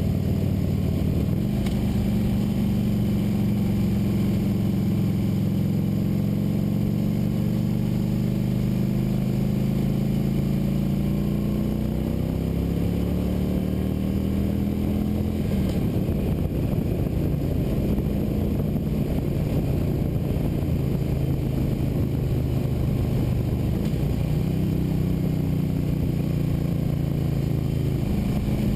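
Motorcycle engine running under way, its note climbing over several seconds as the bike accelerates, then settling to a steadier pitch, with road and wind noise underneath.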